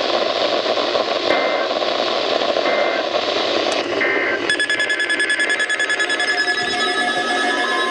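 NOAA Weather Radio reception with heavy static hiss: three short two-tone data blips about a second apart, the SAME end-of-message bursts closing the alert. Then a buzzy, pulsing electronic data signal, and near the end the steady 1050 Hz weather radio alert tone begins.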